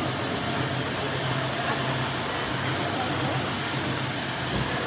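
Steady workshop background noise: a constant low hum with a hiss over it and faint voices.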